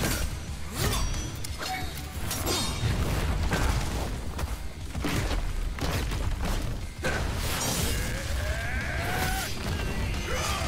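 Action soundtrack music under sword-fight sound effects: sharp hits, crashes and whooshes at irregular intervals over a heavy low rumble.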